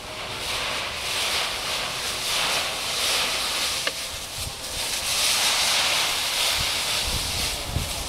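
Dry autumn leaves rustling and crunching in a deep pile as a Siberian husky moves and burrows through it. The rustling swells and fades in waves, with a few low thuds near the end.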